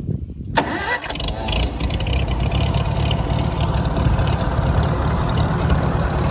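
1947 Farmall H tractor's four-cylinder engine being started with its foot-pushed starter: a brief rising crank that catches about a second in, then the engine runs steadily.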